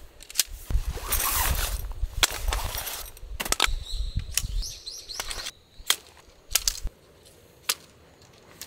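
Tent being pitched: irregular sharp clicks and knocks from the tent poles and fittings, with rustling of tent fabric. After about five and a half seconds it drops to a few isolated clicks.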